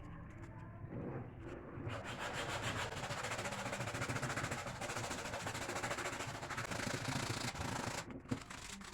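Sandpaper rubbing on a piece of wood in quick back-and-forth strokes, starting about two seconds in and stopping near the end.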